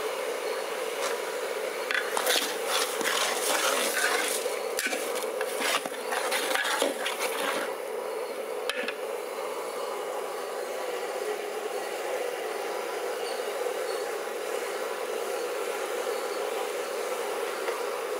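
Metal ladle scraping and clattering against a large aluminium pot of chopped vegetables for several seconds, about two seconds in, over a steady hiss.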